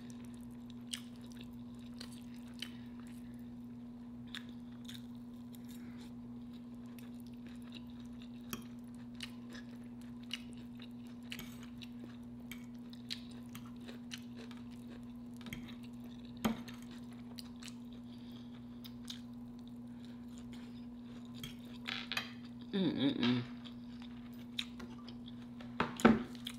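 Close-miked eating: chewing with scattered small clicks of cutlery against a plate, over a steady low hum.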